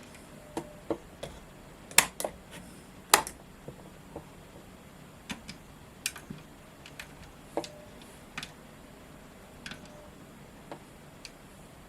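Irregular light clicks and ticks from an N gauge model railway layout, with two sharper, louder clicks about two and three seconds in.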